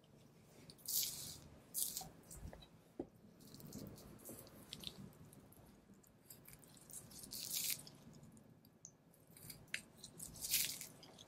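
Butcher's knife slicing fat and sinew off a Kuroge Wagyu knuckle (shintama): a handful of short, sharp cutting strokes at irregular intervals, the loudest near the end.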